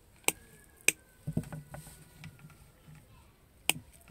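Steel pliers clicking and snipping on a coaxial cable joint's copper braid and centre wire: three sharp clicks, two about half a second apart near the start and one near the end, with handling rustle in between.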